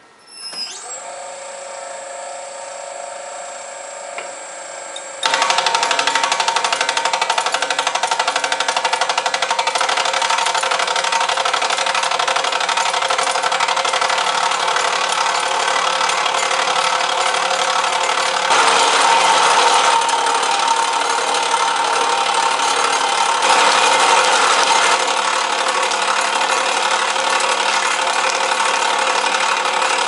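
Nitech CableX cable stripper's electric gear motor starting with a rising whine, then running with a steady hum. About five seconds in it turns suddenly much louder into a dense, rapid rattle as insulated wires are fed through its rollers and stripped. The rattle gets louder twice for a second or two.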